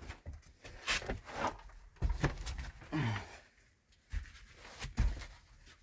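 Knocks, scuffs and shuffles of a person clambering down through a cramped space, with a short sigh about three seconds in.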